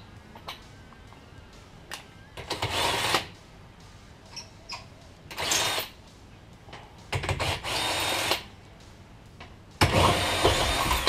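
Cordless impact wrench run in four short bursts on a car wheel's lug nuts, loosening them to take the wheel off.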